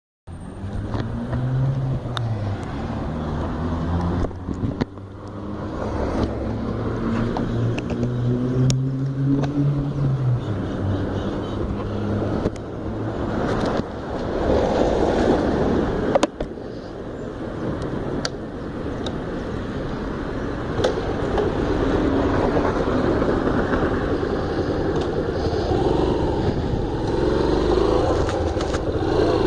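Yamaha Factor motorcycle's single-cylinder engine running with the bike standing still. Its pitch rises and falls a few times in the first ten seconds, then it settles into a steadier, noisier sound, with a few sharp clicks along the way.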